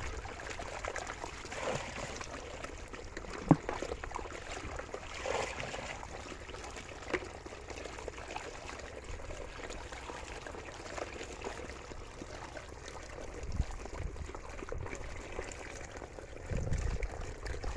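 Water trickling and splashing steadily from a clear plastic spout onto wet fish in a bamboo basket, with an occasional sharp tap, the loudest a few seconds in.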